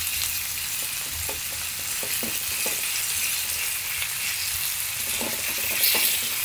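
Ground meat sizzling steadily in a hot iron frying pan as it is stirred, with a few light scrapes of the utensil against the pan.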